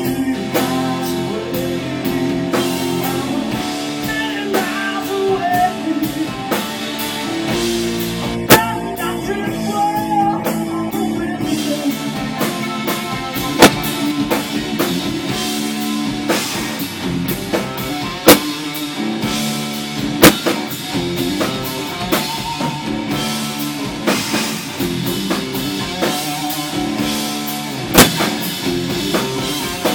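Live blues-rock band playing: electric guitar lines over bass guitar and a drum kit, with sharp drum hits every few seconds that stand out as the loudest moments.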